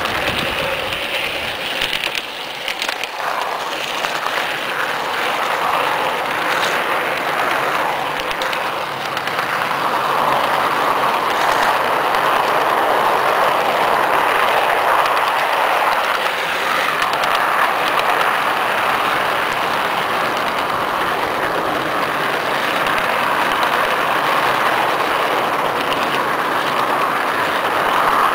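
Garden-scale model train rolling along its track, heard from a camera riding on it: a steady whirring rush of wheels and drive on the rails, with a few sharp clicks in the first several seconds.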